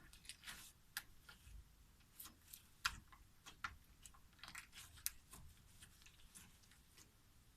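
Faint sticky clicks and small pops of clear slime being pressed and stretched by hand, scattered and irregular, the sharpest about three seconds in.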